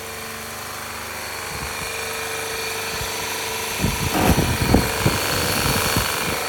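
Mistral hot pressure washer with its Cat triplex pump running steadily. From about four seconds in, irregular low knocks and thuds come in over the running noise.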